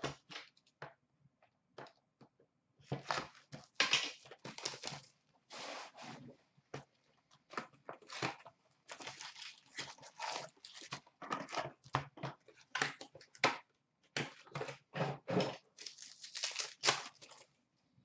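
Plastic wrap and foil card packs of a hockey card box crinkling and tearing as the box is opened and the packs are handled. The crackles are scattered at first, then come almost continuously in irregular runs from about three seconds in.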